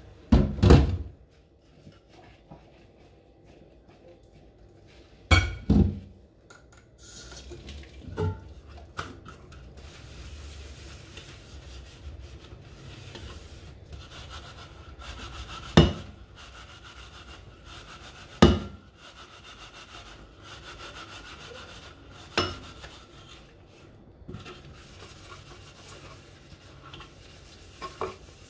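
Dishes being hand-washed: a soapy sponge scrubbing metal and glass pot lids, broken by several sharp clanks of the lids and dishes knocking against the steel sink.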